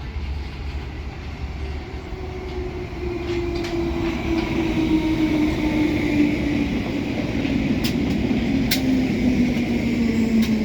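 Bakerloo Line 1972 Stock tube train's DC traction motors whining, the pitch falling steadily as the train slows, growing louder. Two sharp clicks near the end.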